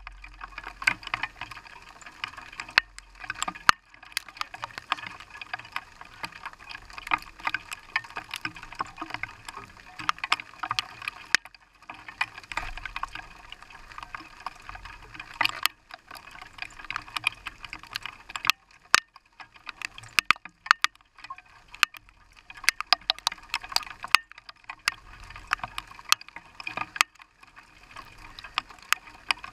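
Rain striking a car's windshield and body, heard from inside the car: a dense, irregular run of sharp ticks over a steady hiss.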